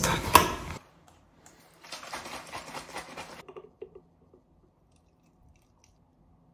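Small plastic toiletry containers being handled close up: a few knocks at the start, a second and a half of rustling about two seconds in, a few light clicks, then near quiet.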